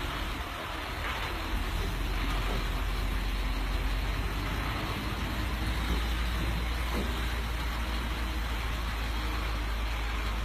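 Truck engine running with steady road noise, a deep rumble under a broad hiss; the rumble gets a little louder about a second and a half in.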